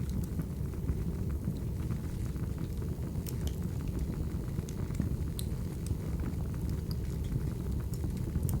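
Crackling wood fire: a steady low rumble of burning logs with scattered sharp crackles and pops, a few louder ones about three, five and eight seconds in.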